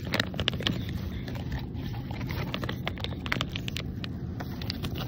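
Handling noise of a plastic toy packet being held and moved close to the microphone: irregular clicks and rustles over a steady low hum.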